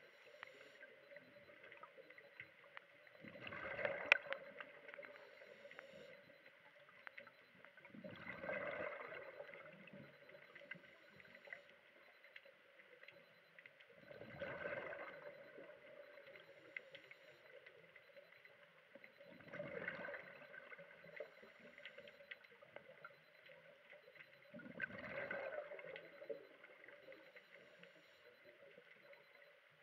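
Scuba diver breathing through a regulator underwater: five bursts of exhaled bubbles gurgling out, each lasting a second or two, about every five seconds, over a faint steady hum.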